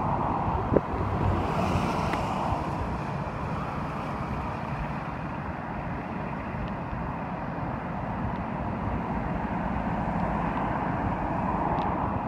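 Road traffic: cars passing on a multi-lane road, a steady hiss of tyres and engines that swells as vehicles go by, about two seconds in and again near the end. Wind rumbles on the microphone.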